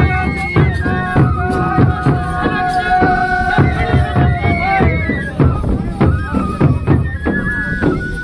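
Folk dance music: a wind instrument plays a melody with long held notes over steady, rapid drumbeats.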